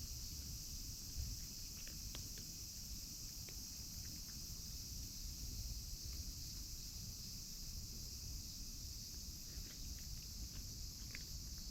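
Steady, unbroken high chirring of insects, likely crickets, with a low rumble underneath and a few faint scattered clicks.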